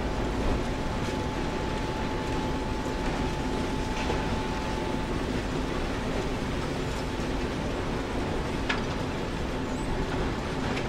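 Steady low rumble of a moving vehicle, with a faint steady tone through the first half and two brief high clicks, about four and nine seconds in.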